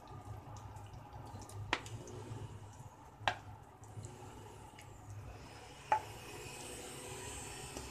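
Wooden spoon stirring grated zucchini in a non-stick frying pan while it braises in its own juice, knocking sharply against the pan three times, about two, three and six seconds in, over a faint low hum.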